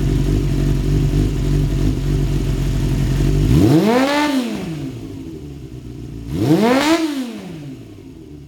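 Honda CBR400F's air-cooled inline-four running through a pre-regulation Sansei Racing exhaust: it idles, then is given two quick throttle blips about three seconds apart, the revs rising and falling back each time before it settles to idle.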